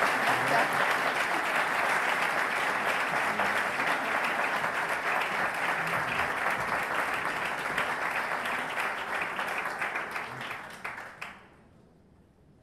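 Audience applauding steadily, a dense patter of many hands clapping, which dies away quickly about eleven seconds in.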